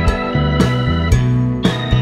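Background music: sustained organ-like keyboard chords over a steady beat, about two beats a second.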